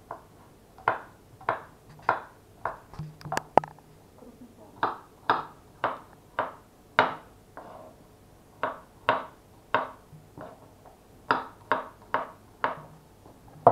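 Kitchen knife slicing garlic cloves on a wooden cutting board: a run of sharp knocks of the blade on the board, about two a second, with a couple of short pauses.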